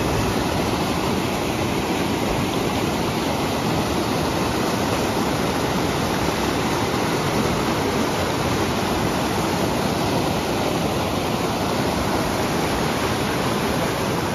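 Fast, muddy river water rushing over rocks in rapids: a steady, unbroken roar of moving water.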